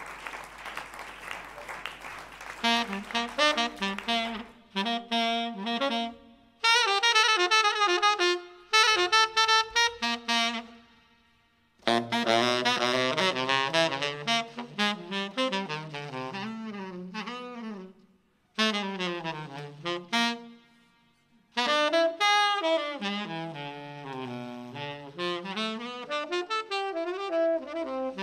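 Unaccompanied tenor saxophone playing jazz phrases that slide up and down, broken by short pauses of near silence. Applause dies away in the first couple of seconds.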